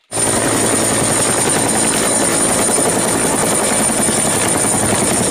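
A two-bladed helicopter hovering close by: the steady beat of the main rotor with a high, steady whine running over it.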